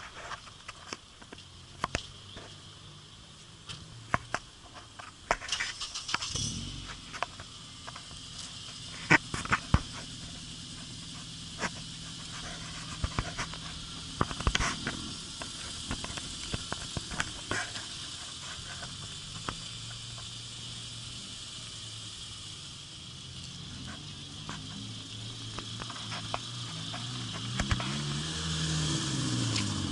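A car engine idling steadily, with scattered sharp clicks over it. Near the end a car drives past, its engine note rising and then falling.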